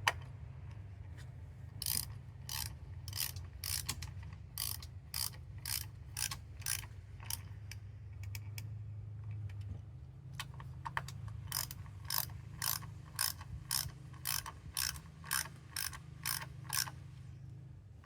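Socket ratchet wrench clicking as it tightens the ignition coil hold-down bolts with a 10 mm socket, about two clicks a second, pausing in the middle before a second run of clicks, over a steady low hum.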